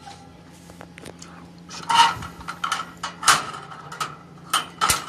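A run of short knocks and clatters, about half a dozen in the second half, from objects being handled; a faint steady hum runs underneath.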